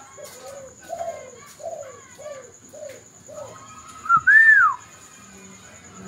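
Spotted dove (tekukur) cooing: a string of six short low coos at an even pace. About four seconds in comes a single loud whistle that rises and then falls.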